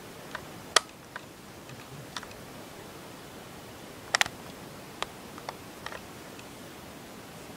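Irregular sharp clicks and ticks over a steady low hiss, a loud one about a second in and a quick double click near the middle.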